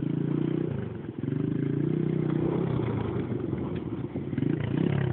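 125 cc ATV engine running under load as it tows a washing machine, its revs rising and falling with a brief dip about a second in, with some clattering from the dragged machine.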